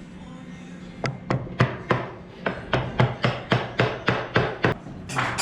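A hand tool working wood in quick, even strokes, about four a second for some three and a half seconds, then one longer stroke near the end. Background music runs underneath.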